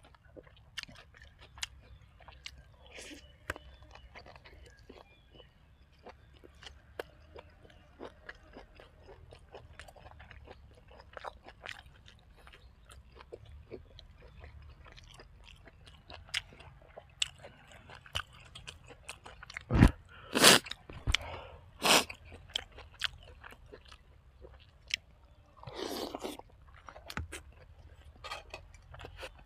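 Close-miked eating: a person chewing and biting food with wet mouth clicks and crunchy bites. About twenty seconds in come a few much louder sharp knocks, and a short fuller noise follows a few seconds later.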